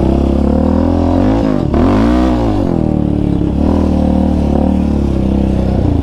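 Yamaha Raptor 700 quad's single-cylinder engine under way, its pitch rising and falling twice between about one and two and a half seconds in as the throttle is worked, then running fairly steady.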